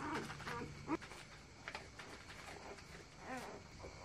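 Dog eating dry kibble and biscuits, with scattered crunching clicks. Short high animal cries, bending in pitch, come in the first second and again about three seconds in.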